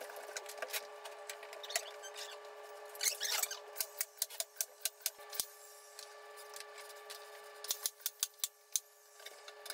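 Nail gun firing into wood crown molding: a series of short, sharp clicks, with a quick run of shots near the end, over a faint steady hum.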